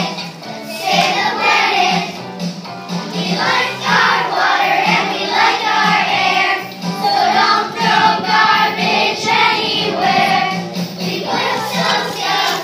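A group of children singing a song together, with instrumental accompaniment.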